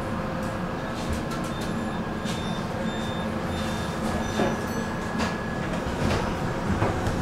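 Tram running along its track: a steady rumble of wheels on rail with scattered clicks, growing a little louder near the end.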